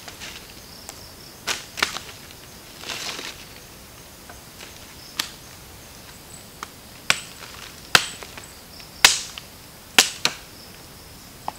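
Dry sticks snapping with sharp cracks as firewood is gathered and broken by hand, about eight cracks that come more often and louder in the second half, with a brief rustle of dry leaves about three seconds in. A faint steady insect drone runs underneath.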